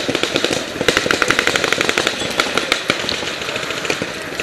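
Paintball markers firing rapid strings of shots, about ten a second, the densest burst from about one second in to about two and a half seconds, then thinner scattered firing.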